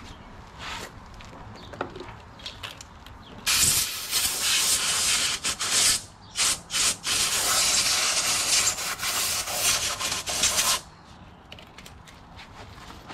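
Compressed air hissing from a blow gun on a coiled air hose, blowing loose dirt off an excavator's final drive housing around the drain and fill plugs. The air starts about three and a half seconds in, cuts out briefly a few times in the middle, and stops a couple of seconds before the end.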